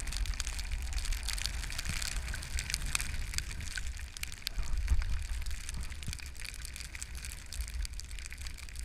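Skis sliding and scraping over packed snow, a steady hiss full of small crackles, with a low rumble of wind buffeting the microphone that swells briefly about halfway through.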